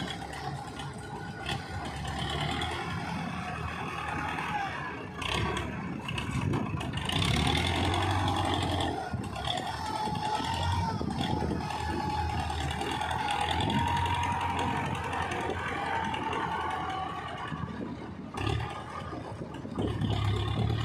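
A front-loader tractor's engine running and revving as the loader digs into and lifts wet clay, swelling several times under load. A steady whine that wavers in pitch runs over the engine.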